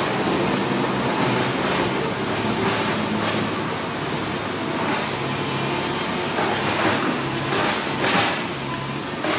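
Loaded six-wheel dump truck's diesel engine running steadily as the truck crawls over a rutted dirt track, with scattered knocks and rattles.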